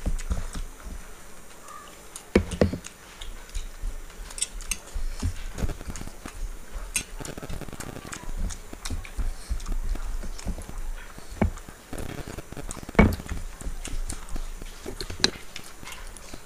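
Two people eating a rice meal by hand from steel plates: fingers mixing rice and dal, chewing and lip smacks, with frequent small clicks. Louder knocks about two seconds in and again around thirteen seconds.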